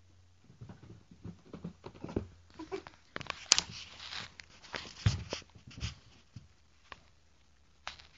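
Irregular knocks, taps and rustles of a handheld video camera being handled and moved, with the sharpest knock about three and a half seconds in and few sounds in the last couple of seconds.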